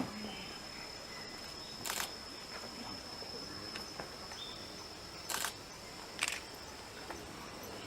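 Quiet outdoor ambience: an insect holds one steady high-pitched tone, broken by three short rustles or scrapes.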